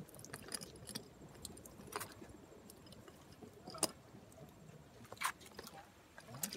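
A casting net being handled and picked through by hand on rocky ground: soft rustling with a few scattered, sharp little clicks.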